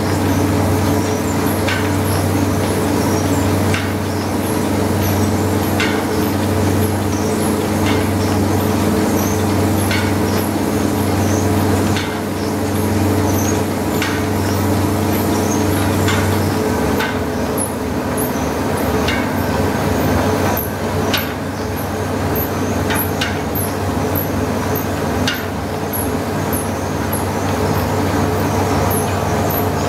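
Steam-powered rice mill at work: the stationary steam engine and its flywheel turning, driving belts and milling machinery, a steady mechanical drone with a sharp knock about every two seconds. The drone shifts in tone about halfway through.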